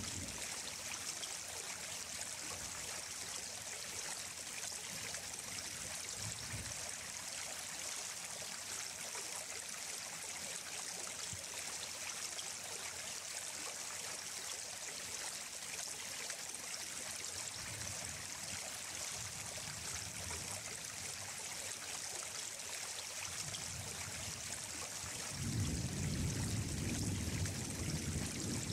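Running water, a steady rushing hiss. A low rumble swells for about three seconds near the end.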